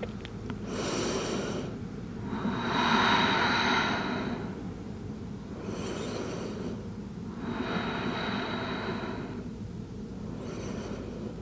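Slow, audible yoga breathing close to the microphone: five long, hushed breaths in and out, each lasting a second or two, with short pauses between them, over a faint steady low background.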